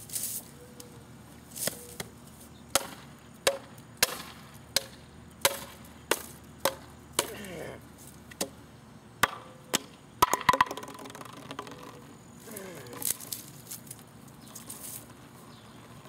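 Repeated sharp chopping blows on wood as branches are cut from a dead tree, about one or two strikes a second, with a quick flurry of blows a little past the middle.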